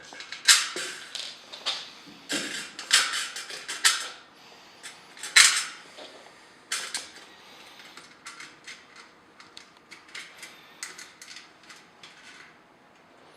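Hard plastic parts of an exhaust fan being handled and fitted: an irregular run of clicks and knocks, louder for the first half, then lighter ticking.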